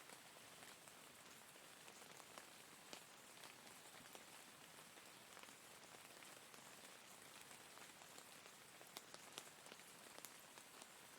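Faint, steady rain: an even hiss of falling rain with single drops ticking sharply here and there, a few of them close together near the end.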